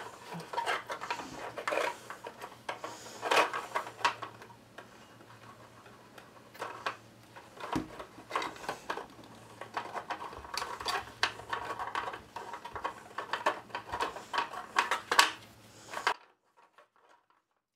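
Paper craft pieces being handled and pressed down while gluing: irregular light taps, clicks and rustles. They stop abruptly a little under two seconds before the end.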